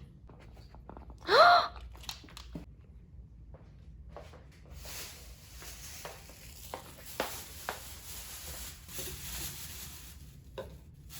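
One short, rising dog whine about a second in, the loudest sound here. From about five seconds in comes a steady hiss with a few light clicks.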